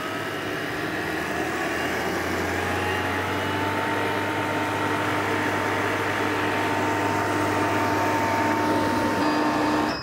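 Self-contained refrigerant recovery machine running at its highest recovery speed, its compressor pumping refrigerant out of an air conditioner into a recovery tank: a steady mechanical whir and hum with a tone that climbs slightly in pitch over the first few seconds. It cuts off at the end as the machine is shut off, the system pulled down to zero PSI.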